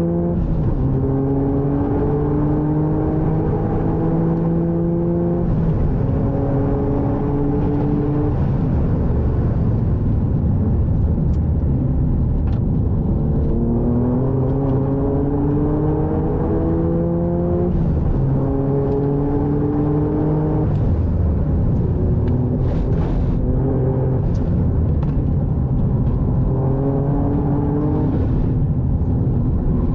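Toyota GR Yaris's turbocharged three-cylinder engine, heard from inside the cabin under hard acceleration on track. It climbs up through the revs again and again, with short breaks where gears are changed and stretches where the driver eases off.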